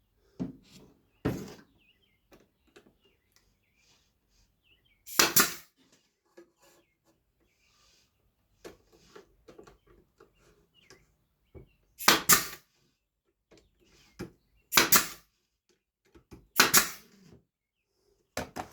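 Brad nailer firing about five times, each a short sharp shot, fastening the roof pieces at the peak, with light clicks and knocks of wood being handled between shots.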